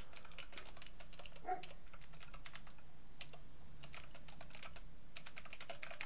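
Typing on a computer keyboard: a quick, irregular run of key clicks as a line of text is typed.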